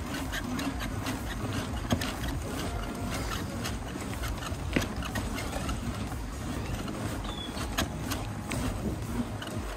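Bicycle with knobby tyres rolling along a paved path: steady wind rumble on the microphone and tyre noise, with a few sharp knocks and rattles from the bike.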